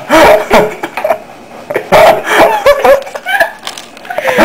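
A girl laughing hard in loud, repeated bursts.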